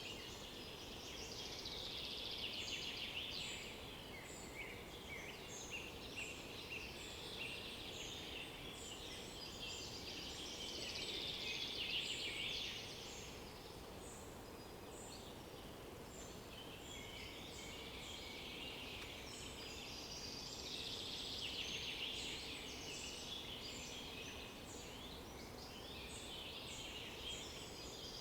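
Several forest songbirds singing, their song phrases of a few seconds each coming in waves and overlapping, with short high notes between them, over a faint steady background hiss.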